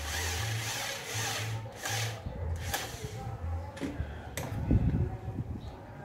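Corded electric drill running under load into the gate's wooden frame for about two seconds, then a shorter second burst, followed by a few clicks and low knocks as the tool is handled.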